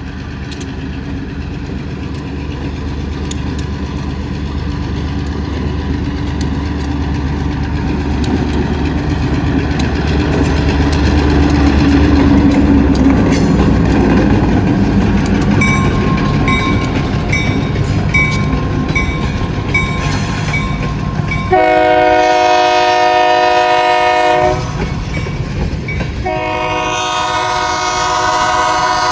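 Freight train led by a diesel locomotive approaching, its low rumble building and then holding, with a bell dinging at a steady pace for a few seconds. The locomotive horn then sounds two long blasts, the first starting about two-thirds of the way in and the second near the end.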